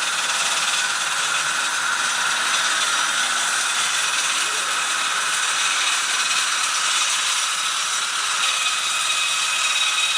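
Jayem FC1100 concrete cutting machine running steadily, an even, high-pitched hiss-like machine noise with no breaks.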